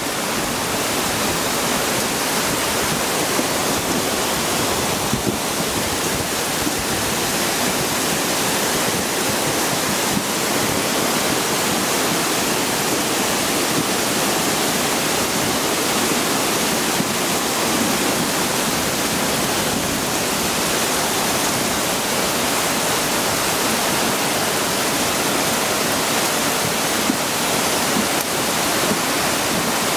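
Flash-flood torrent rushing down a rocky gully: a loud, steady roar of water under heavy rain.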